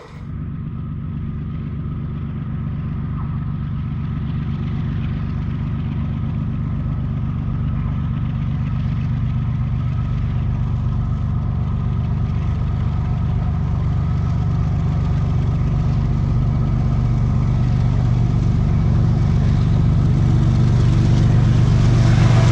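EMD diesel locomotive's engine running with a steady low throb, growing gradually louder as the locomotive approaches.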